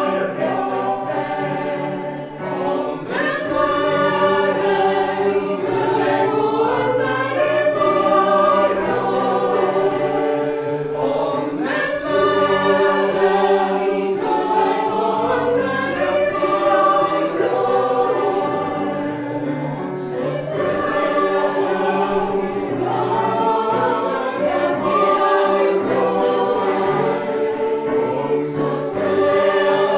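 A mixed choir of women's and men's voices singing together, holding long notes in flowing phrases.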